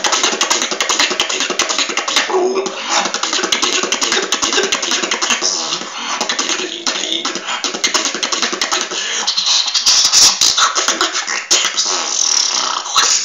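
A person beatboxing freestyle: a fast, unbroken stream of mouth-made clicks and hisses with hummed tones underneath.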